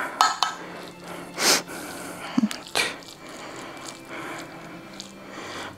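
Cabbage filling being spread by hand in a baking dish: a few light taps and soft scrapes, with a short hissy rush about one and a half seconds in and another near three seconds.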